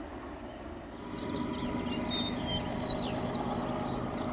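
Several birds chirping and warbling over the low, steady hum of approaching GE diesel freight locomotives, with one sharp click about two-thirds of the way through.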